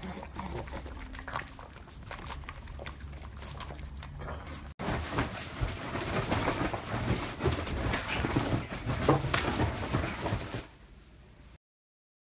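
Pugs licking food off a metal spoon, with quick wet licks and smacks. After a sudden cut about five seconds in comes a louder, busier stretch of a pug scrambling about on bedding, with its dog noises. The sound cuts off to silence near the end.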